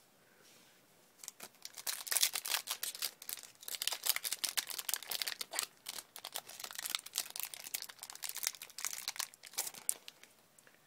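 A foil Yu-Gi-Oh booster pack wrapper crinkling and tearing as it is ripped open. A dense run of sharp crackles starts about a second in and stops shortly before the end.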